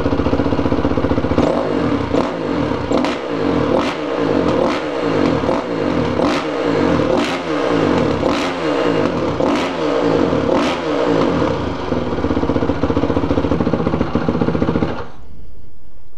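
Honda CRF450 single-cylinder four-stroke dirt bike engine, warming up, with its throttle blipped about a dozen times, roughly once a second, each rev falling back to idle. It then idles steadily and is switched off about fifteen seconds in.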